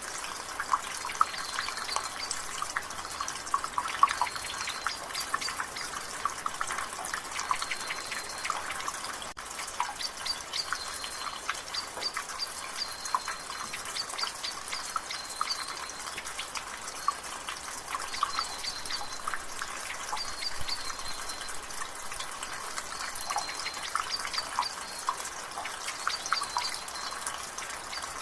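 Rain water dripping and splattering from a gutter, with many irregular drops over a steady drizzle hiss. A bird's short high note repeats every couple of seconds in the background.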